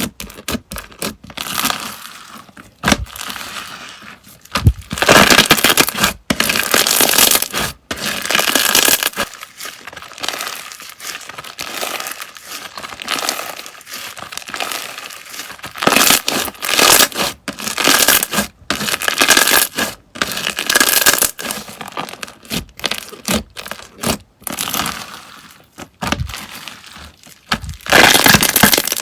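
Slime being handled, making irregular bursts of crackling and popping with short pauses between them.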